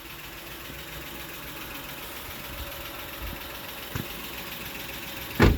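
Honda Odyssey 3.5 V6 idling steadily while the steering is worked to check for suspension noise after new sway bar bushings were fitted. A small knock about four seconds in and a sharper, louder knock near the end.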